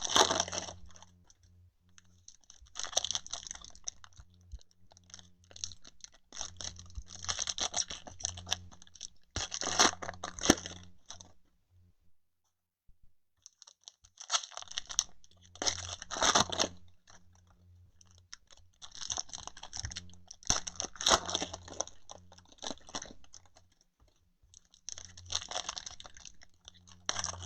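Foil packs of 2020 Donruss Optic baseball cards being torn open and crinkled by hand: bursts of tearing and crackling every few seconds, with a short pause about halfway through.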